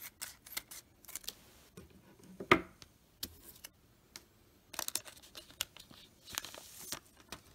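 Foil wrapper of a sealed trading-card pack crinkling and clicking as it is handled, with one sharper crackle about two and a half seconds in, then a denser crackling near the end as the pack is pulled open.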